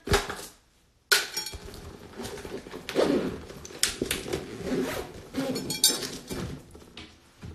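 Close handling noise: small hard objects clinking and knocking against a hard surface, with rustling between, as things are moved around right beside the phone's microphone. The sharpest knocks come at the very start and about a second in.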